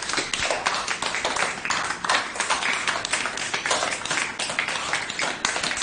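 A group of children clapping their hands, a dense run of quick, uneven claps.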